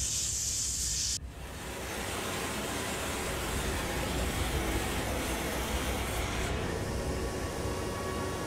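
Steady roar of glassworking gas burners, the hand torch and the furnace flame. A high hiss cuts off sharply about a second in, giving way to a lower, broader roar with a rumble underneath.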